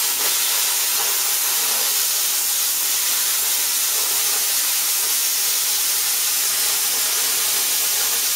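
Plasma cutter torch cutting a steel sheet: the arc's steady, unbroken hiss.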